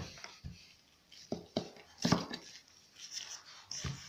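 Hands and a rolling pin working a sheet of dough on a cloth-covered table: a few short, irregular knocks and rubs, the strongest about two seconds in.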